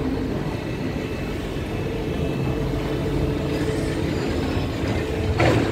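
Big diesel harbour ferry's engines running at the wharf, a steady low drone with a constant hum. A brief rush of noise comes near the end.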